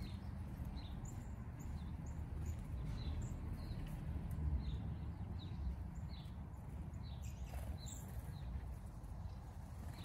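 Small songbirds chirping: short, high call notes repeated about twice a second, over a steady low rumble.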